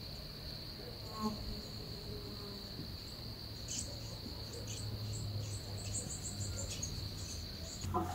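Crickets trilling in one steady, unbroken high tone that cuts off suddenly near the end, with faint high ticks over it from about four seconds in.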